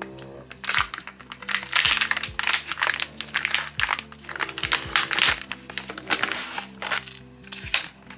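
Thin plastic film of a sliced-cheese package crinkling in irregular rustles as it is peeled back from its plastic tray and handled, over background music.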